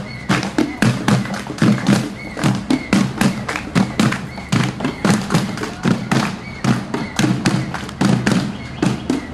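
Rapid, irregular knocking and thudding, several sharp hits a second, with voices underneath.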